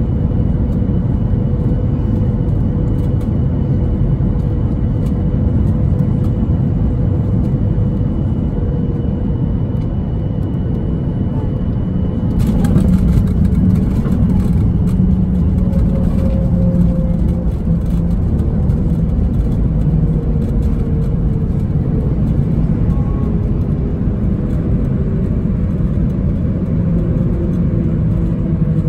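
Cabin noise of a Boeing 737-800 on final approach and landing: a steady rumble of its CFM56 engines and airflow, with a thin steady whine. About twelve seconds in the wheels touch down and the noise jumps, with added rattling. After that, whining tones fall slowly in pitch as the jet slows on the runway.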